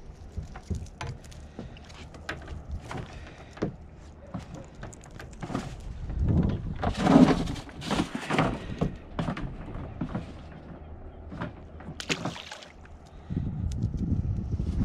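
Irregular knocks, thuds and clatter on a small boat as a mackerel feather rig and its catch are handled over the side, growing louder and busier for a few seconds in the middle.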